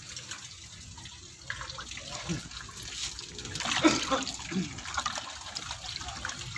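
Water splashing and trickling at the pond's edge.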